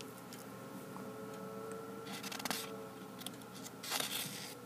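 Faint room tone with a steady low hum, broken by a few soft clicks and two short rustles.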